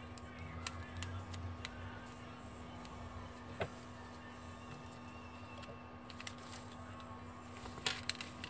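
Small clicks and taps of the LG GU230's plastic slider housing being handled and fitted in gloved hands, over a steady faint hum. One sharper click about three and a half seconds in, and a quick cluster of clicks near the end.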